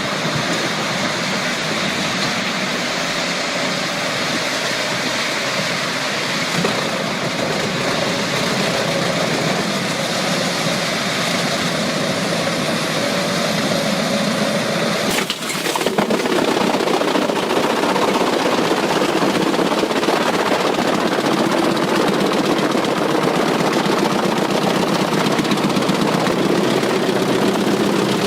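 Heavy tree-shredding machine running under load as it chews through wood. The engine drone and the dense crunching clatter are steady, then change abruptly with a short dip about fifteen seconds in and run on a little louder.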